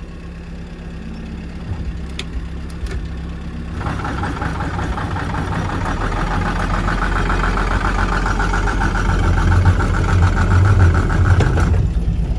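Off-road vehicle's engine idling while its electric winch winds in a stuck SUV. The winch's rippling whine starts about four seconds in, grows louder and heavier as it takes the load, and cuts off shortly before the end.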